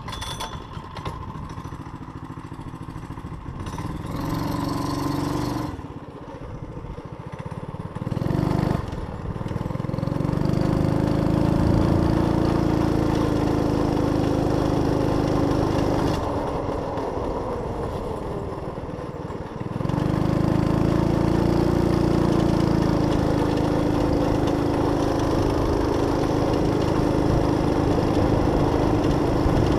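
A Heald VT-10 trike's 6.5 hp Harbor Freight single-cylinder four-stroke engine revving as the trike pulls away, then running steadily under throttle. It eases off for a few seconds about sixteen seconds in and picks up again about twenty seconds in.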